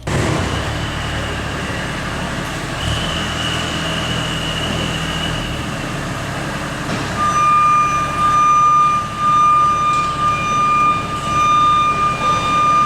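Heavy construction vehicle engine running. About seven seconds in, a reversing alarm starts, sounding in long, high beeps.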